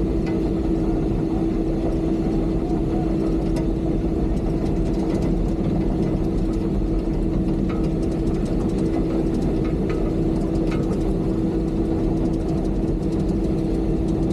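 Excavator's diesel engine running at a steady speed, a constant hum with a strong steady tone and a few faint clicks.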